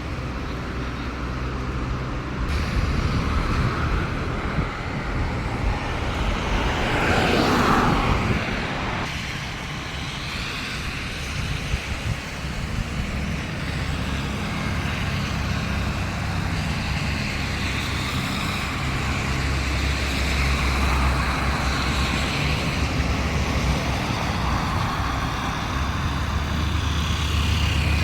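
Road traffic: a steady rumble of vehicles, with one passing close and louder around seven to eight seconds in.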